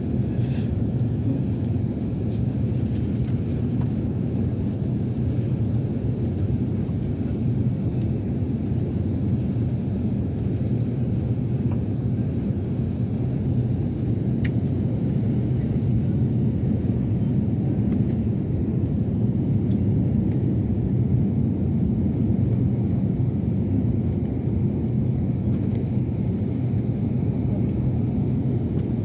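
Airbus A330 cabin noise: a steady low rumble of engines and airflow, unchanging throughout.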